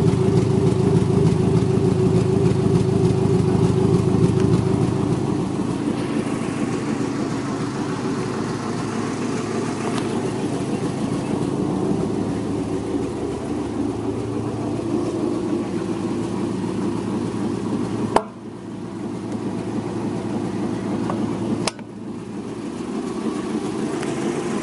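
1984 Range Rover's V8 petrol engine idling steadily, heard at the exhaust tailpipe: it is running well after sitting unstarted for four years. The sound is loudest for the first five seconds, then drops a little, and there are two sharp clicks in the last third.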